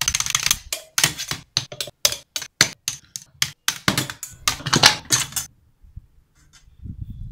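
Laptop keyboard being pounded hard, a fast irregular clatter of key strikes several times a second that stops abruptly about five and a half seconds in.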